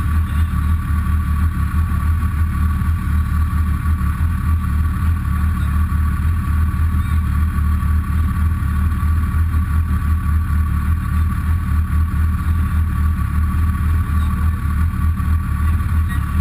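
Textron Wildcat XX side-by-side's engine idling steadily while the machine sits still, heard from inside the cab as an even low hum with a thin steady whine above it.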